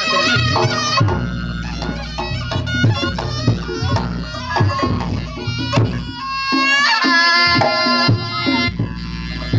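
Reog Ponorogo gamelan accompaniment: a slompret shawm plays a wavering, bending melody over steady kendang drum strokes. Near the middle of the passage the melody slides upward.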